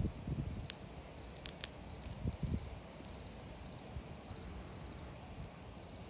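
Crickets chirping steadily in short pulsed chirps, about two a second, over a wood campfire that gives a few sharp crackling pops in the first two seconds. A low rumble from the fire is strongest near the start.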